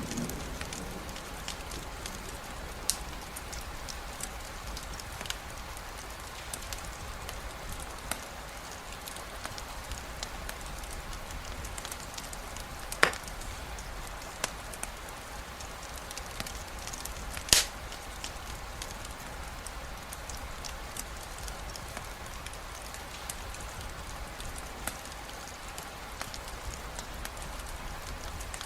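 Steady rain with a wood fire crackling: scattered sharp pops over the even patter, two of them much louder about halfway through. The tail of a low thunder rumble dies away at the very start.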